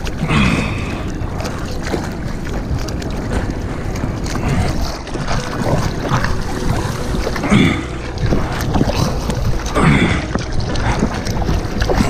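Water sloshing and splashing around a surfboard as the surfer paddles out, a louder splash of a hand stroke every few seconds, with wind on the microphone.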